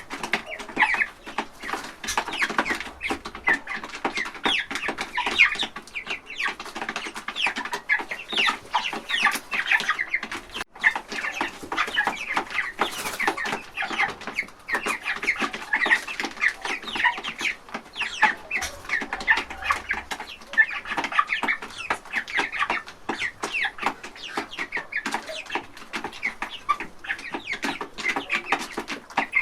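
A flock of chickens clucking, many short overlapping calls with no break.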